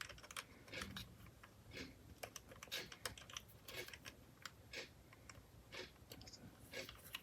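Faint, scattered small clicks and taps as a little lever is fitted into the brass knob that clamps the cutting tool on a micro metal lathe.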